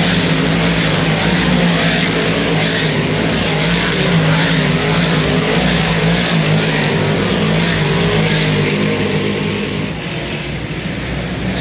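Big-block V8 modified dirt race cars racing in a pack, their engines loud and continuous as cars pass close by one after another. The sound eases a little near the end.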